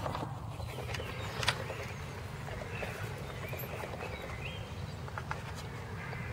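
Park ambience: a steady low rumble from wind on the microphone, with a few sharp clicks and some brief birdsong chirps, a couple of them rising in pitch.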